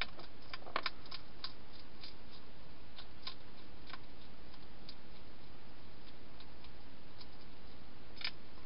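European hedgehog crunching dry food: irregular sharp clicks, a quick cluster about a second in, then scattered ones, over a steady background hiss.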